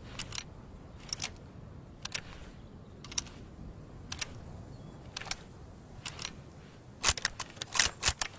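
Metallic clicks from a Lebel Model 1886 M93 bolt-action rifle being handled: a pair of light clicks about once a second, then about seven seconds in a quicker run of louder clicks and rattles.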